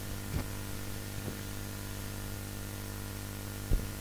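Steady electrical hum with hiss in the recording, with a few faint short sounds, the clearest just before the end.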